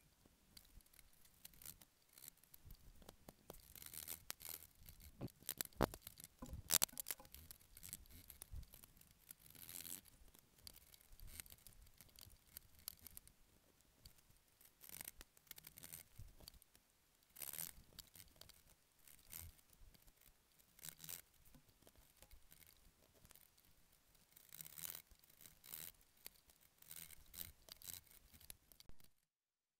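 Chisel pared by hand through the waste between dovetails in a board's end grain: irregular scraping and crunching cuts with chips cracking off, a few sharper cracks between about four and seven seconds in. It stops suddenly just before the end.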